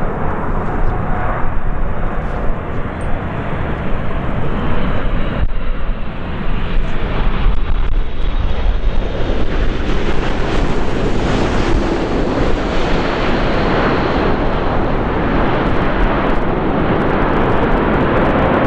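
Boeing 747-8F freighter landing, the jet noise of its four GEnx-2B turbofans growing louder and brighter about six seconds in as it passes close by. The noise then stays steady as the aircraft rolls out on the runway with spoilers up.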